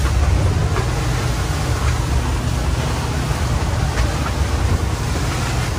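Aboard a Monterey 335 Sport Yacht in heavy seas and 40 mph winds: a steady low rumble with loud rushing wind and water noise over it.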